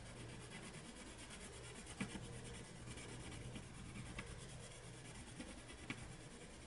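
Wax-based colored pencil shading back and forth on paper at medium pressure: a faint, steady scratching of many quick strokes, with a few light ticks.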